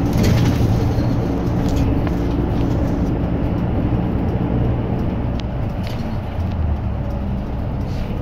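Diesel low-floor city bus running along the road, heard inside the cabin: a steady engine drone with road noise, and a few faint clicks.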